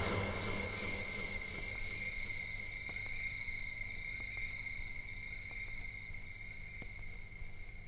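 A steady high-pitched tone with fainter higher overtones, ringing on at the tail of the track as it slowly fades, with a few faint clicks.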